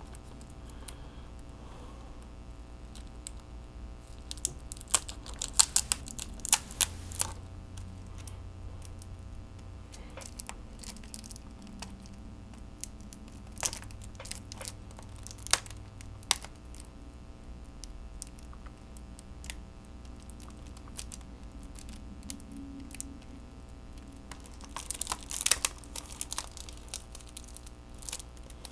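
Plastic shrink-wrap being torn and peeled off a Blu-ray combo pack case, heard as scattered crinkles and sharp clicks, with a denser spell of crackling near the end.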